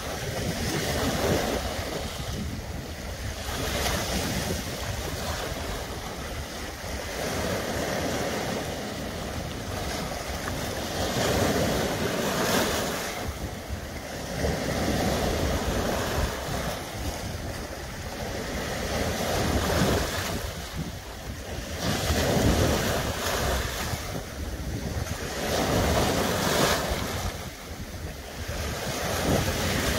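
Small sea waves breaking and washing over a rocky shore, the rush of surf swelling and easing every few seconds.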